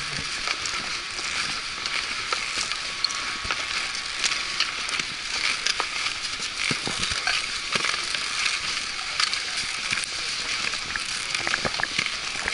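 Skis scraping and sliding over packed snow, a steady crackling hiss dotted with many small clicks and crunches of ski edges and poles as skiers shuffle forward.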